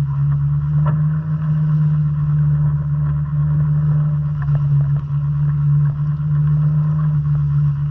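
Outboard motor on a small sailboat running at a steady speed, a constant low drone.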